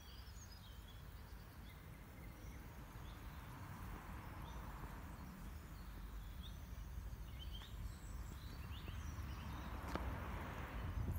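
Faint outdoor ambience: small birds chirping now and then over a low steady rumble, with a soft hiss that swells twice.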